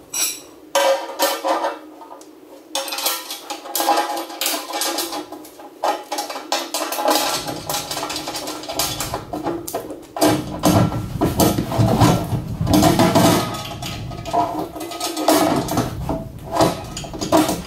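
Metal clinks and clanks of a 6 mm aluminium sump guard and tools being handled under the car, over background music whose bass comes in about halfway through.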